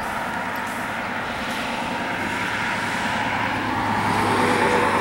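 Road traffic: a passing vehicle's engine and tyre noise, growing louder over the last couple of seconds.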